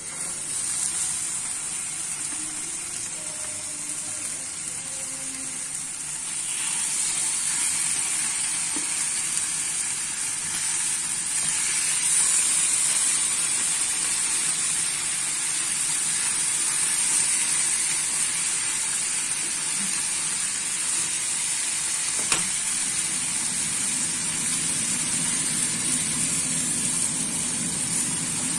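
Chicken thighs marinated in sukiyaki sauce sizzling as they fry in a hot nonstick pan. The sizzle starts suddenly as the first piece goes in and gets louder in steps as more pieces are added.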